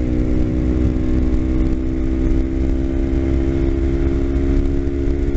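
Kawasaki Ninja 250's parallel-twin engine running at a steady pitch while the motorcycle cruises, with a heavy low rumble of wind on the microphone.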